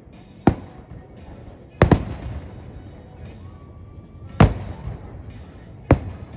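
Fireworks show: loud aerial shell bursts. A single bang comes about half a second in, a quick double bang near two seconds, and further bangs near four and a half and six seconds, each trailing off in a rumbling echo.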